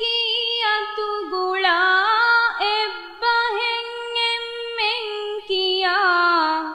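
A woman's solo voice singing unaccompanied: a slow melody of long held notes with ornamented bends and turns between them.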